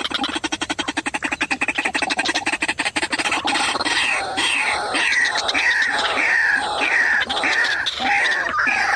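White-breasted waterhen calling: a fast rattling run of notes, then from about four seconds in, loud repeated falling calls, roughly two a second.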